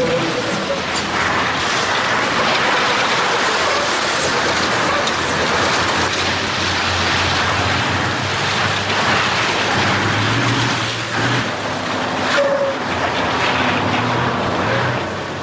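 Heavy diesel trucks driving fast: a steady rush of engine and road noise, with a low engine note coming through more clearly past the middle.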